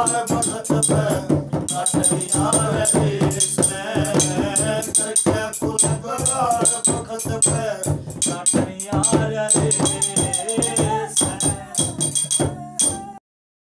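Haryanvi ragni folk music playing without words: fast, rattling percussion under a pitched melody. It cuts off abruptly about a second before the end, then silence.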